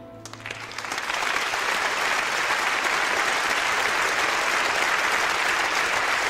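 Theatre audience applauding: a few claps at first, swelling within about a second into steady, sustained applause, as the last held note of the music dies away.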